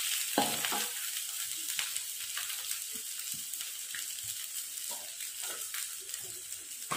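Spice paste sizzling in a hot wok as cooked rice is scraped off a plastic plate into it with a steel ladle. Short scrapes and knocks of the ladle come and go over the steady sizzle, the loudest about half a second in.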